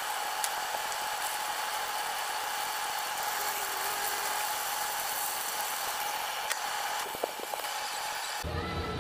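Chicken karaage shallow-frying in oil in a frying pan: a dense, steady sizzle with a faint steady whine under it and a few light clicks of chopsticks turning the pieces. The sizzle cuts off suddenly about a second before the end.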